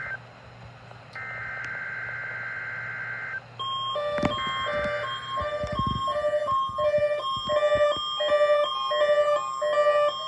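NOAA Weather Radio EAS/SAME digital header: a burst of buzzy data tone cuts off at the very start, then comes a second burst of about two seconds. About three and a half seconds in, a repeating electronic tune of short notes, about two a second, starts over a steady tone near 1 kHz and runs on.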